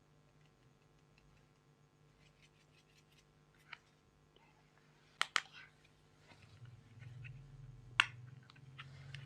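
Slime being worked by hand: scattered soft crackles and a few sharp sticky clicks, with a close pair about five seconds in and the loudest click near the end, over a low hum.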